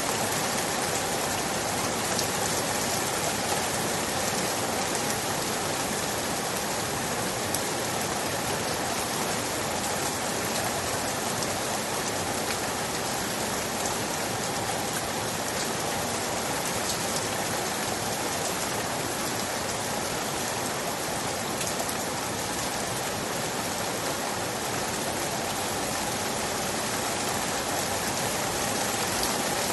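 Steady rain falling, a dense even hiss with many small drop ticks through it.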